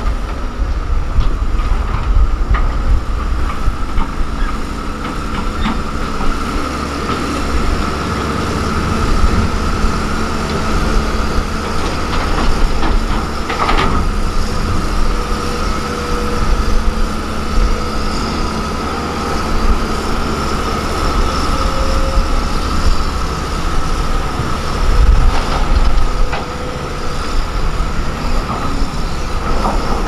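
LiuGong 4180 motor grader's diesel engine running under load as its blade drags through loose soil: a deep rumble with a steady high whine over it. A few sharp knocks, one about halfway through and a couple more near the end.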